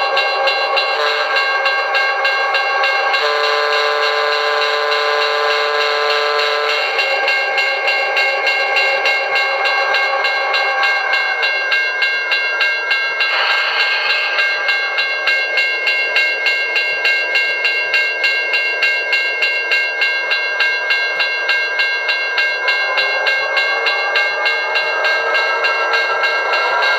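Model-train diesel sound effects from a QSI Maxx Traxx sound unit played through a speaker: the engine runs steadily under a chord of steady tones, with a one-chime horn sounded for about four seconds a few seconds in. Later a rhythmic rail clatter sets in and the engine's pitch rises near the end.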